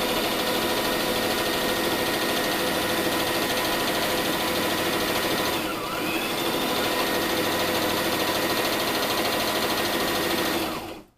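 Brother electric sewing machine running steadily at speed, stitching a fabric seam as the cloth is fed under the needle. It eases off briefly about six seconds in, picks up again, then stops suddenly just before the end.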